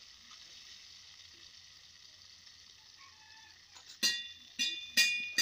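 Turmeric-coated fish pieces sizzling in hot oil in a kadai, a steady hiss. About four seconds in, the metal spatula strikes and scrapes the pan four times in quick succession, each knock ringing.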